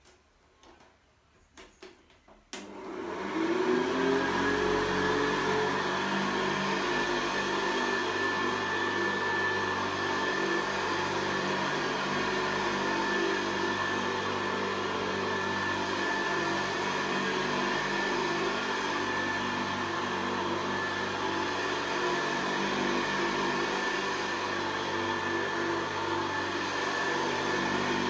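Hoover Convertible upright vacuum cleaner switched on after a few clicks about two and a half seconds in, its motor spinning up with a rising whine and then running steadily with a high whine.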